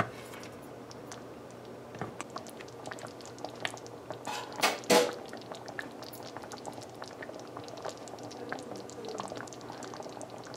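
Thick mango guruma sauce simmering in a pot, its bubbles making small irregular pops, with a few louder clicks about two and five seconds in.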